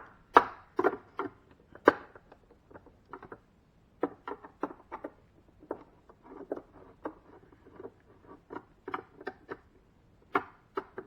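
Irregular clicks and knocks of a screwdriver and plastic parts being worked as screws are loosened from a refrigerator ice maker, sharpest in the first two seconds and again near the end.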